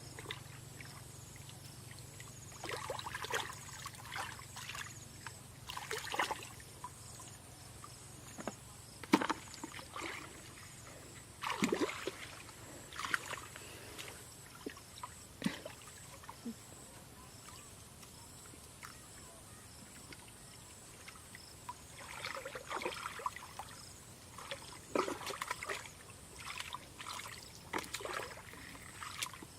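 Water sloshing and splashing in irregular short bursts, with scattered knocks, over a faint low hum that fades out about a third of the way through.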